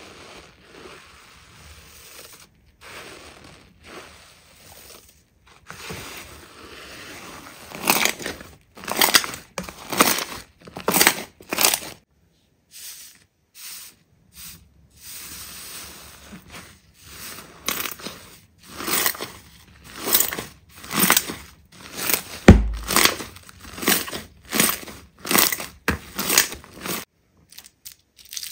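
Hands squeezing and pressing slime in repeated squishy, crackling strokes, about one or two a second, quiet at first and louder from about a third of the way in, broken by a few abrupt cuts to silence.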